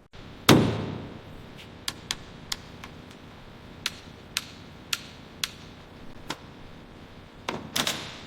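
One heavy thud, then a series of sharp knocks and taps at uneven spacing, with a quick cluster of knocks near the end.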